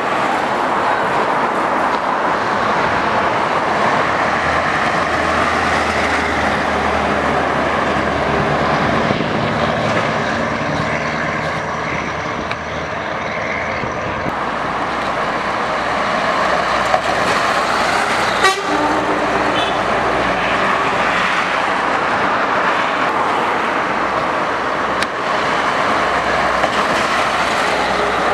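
Straight-piped Scania 143 and 144 trucks with V8 engines driving past one after another, the open exhausts loud throughout. A short horn toot sounds about two-thirds of the way through.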